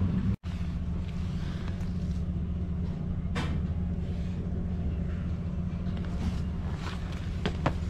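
A steady low mechanical rumble, broken by a brief cut just after the start, with a few sharp clicks or taps about three seconds in and near the end.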